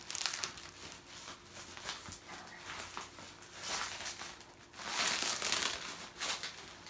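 Bubble wrap and packing tape crinkling and rustling as a cardboard box is pulled out of its wrapping, loudest about five seconds in.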